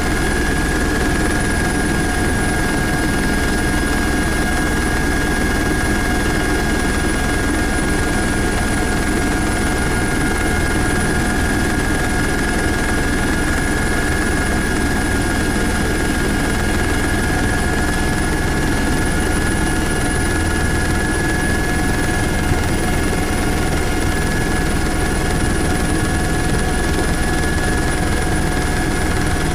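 Helicopter in flight heard from inside the cabin: a steady, loud engine and rotor drone with a constant high whine over it, unchanging throughout.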